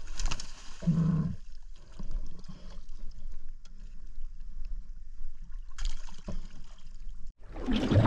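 Water splashing and sloshing beside a small boat's hull as a speared Spanish mackerel thrashes at the surface and is hauled up alongside.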